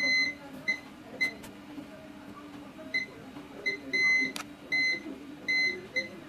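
Digital multimeter beeping in short, unevenly spaced beeps, about nine, some brief and some held a little longer, as its probe tip is touched from capacitor to capacitor around a phone's CPU. Each beep marks a low reading at the probed point.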